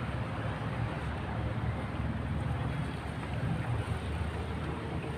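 Car engine idling steadily with a low, even rumble, its upper radiator hose disconnected so the running engine pushes the flushing water out of the engine block.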